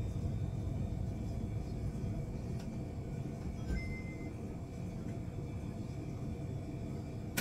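Steady low hum and rumble of a store interior, with a short electronic beep about four seconds in.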